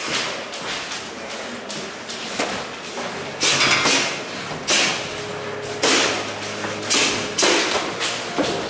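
Boxing gloves landing punches during close-range sparring: a run of sharp thuds and slaps, about six, mostly in the second half.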